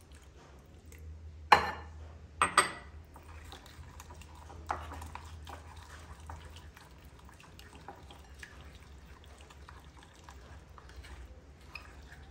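A whisk stirring thick gram-flour batter in a glass bowl, with soft wet sloshing and light ticks of the whisk against the glass. Three sharp glass clinks about one and a half to two and a half seconds in are the loudest sounds.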